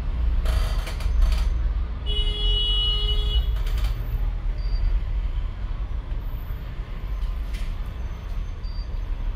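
Steady low rumble with a few knocks. A brief pitched tone, like a horn or beep, sounds about two seconds in and lasts over a second.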